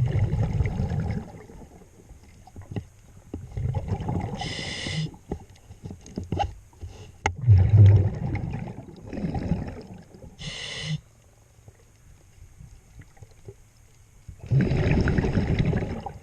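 Scuba diver breathing through a regulator underwater: several rough gurgling bursts of exhaled bubbles about a second long, with a short hiss of inhalation twice.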